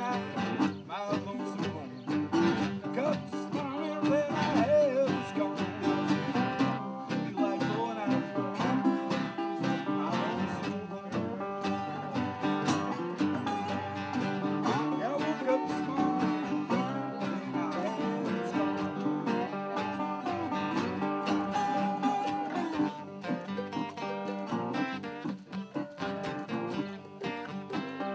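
Several acoustic guitars, a resonator guitar among them, playing a blues tune together with plucked and strummed parts. A man sings briefly near the start.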